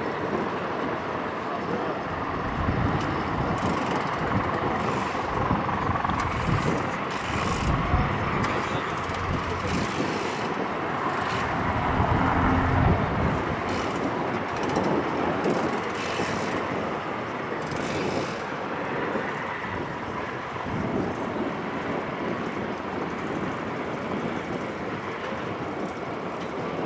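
Airbus H225M Caracal helicopter running close by: steady rotor and twin-turbine noise, swelling a little around the middle, with some wind noise on the microphone.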